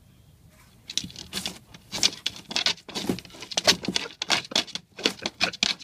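A hen scratching and scrabbling at a cardboard box: rapid scratchy strokes, about five a second, starting about a second in and stopping just before the end. She is scratching out a nest, perhaps getting ready to lay.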